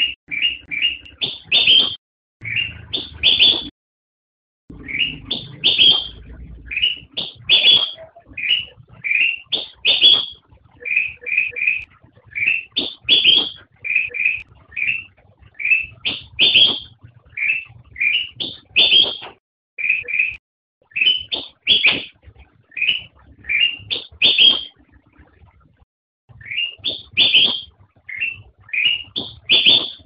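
Kutilang emas bulbul (Pycnonotus melanicterus) singing: short, clear whistled notes that slide upward, mostly in quick groups of two or three, repeated about once a second with a few brief pauses.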